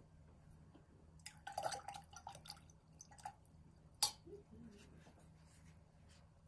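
Paintbrush sloshed in a stainless steel pot of rinse water: a quick run of small splashes and drips over about two seconds, then a single sharp tap about four seconds in.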